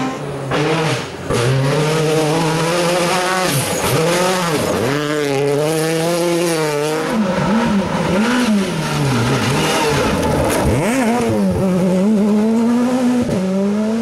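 Rally car engines at full attack on a gravel stage, revving up and dropping back again and again through gear changes and lifts off the throttle. The hiss of sprayed gravel runs underneath.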